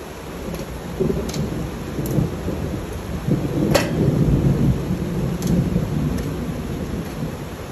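A hand hoe chopping into garden soil, with a few sharp clicks as the blade strikes. Under it a louder low rumble swells about a second in, peaks midway and slowly fades.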